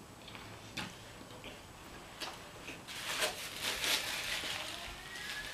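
Close-miked eating of fettuccine alfredo: two light clicks of a metal fork against the bowl, then a few seconds of wet chewing and slurping of the noodles.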